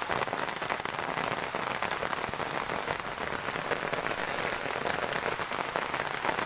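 Heavy rain falling steadily, a dense even patter of drops.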